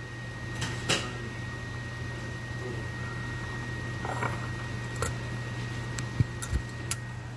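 A few light clicks of a utensil against a cooking pot while foam is skimmed off simmering beef broth: one about a second in, one around five seconds in and three or four close together near the end, over a steady low hum.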